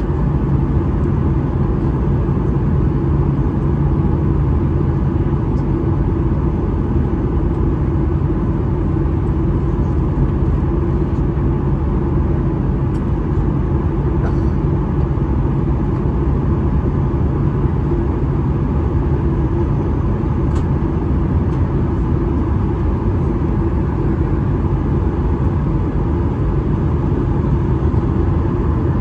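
Cabin noise of a Boeing 737-800 with its CFM56-7B turbofans running at low power during ground movement: a steady rumble with a constant low hum, unchanging throughout.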